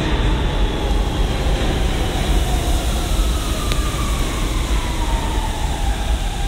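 New York City subway train running through a station, a steady loud rumble with a faint whine that falls slowly in pitch through the second half.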